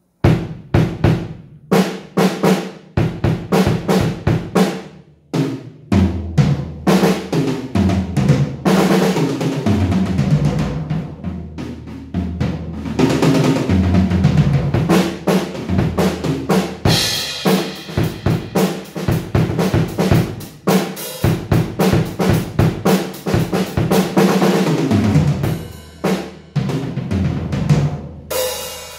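Acoustic drum kit being played: fast snare strokes and rolls, fills stepping down the toms, bass drum hits and stretches of cymbal wash.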